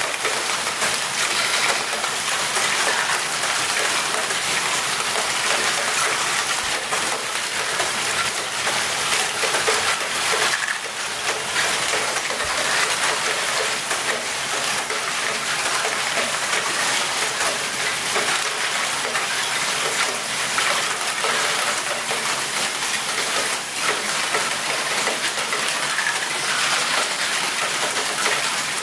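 Many small plastic balls clattering continuously through a large Lego Great Ball Contraption, dropping into Lego bins and rolling along plastic tracks, a dense, steady patter of tiny clicks.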